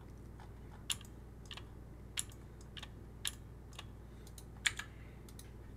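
Computer keyboard and mouse clicks, about eight sharp, irregularly spaced clicks, over a faint steady low hum.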